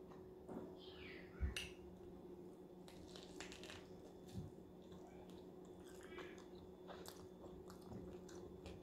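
Faint close-up eating sounds of a person biting into and chewing a romaine lettuce wrap, with scattered soft crunches and clicks. There is one louder thump about a second and a half in, over a low steady hum.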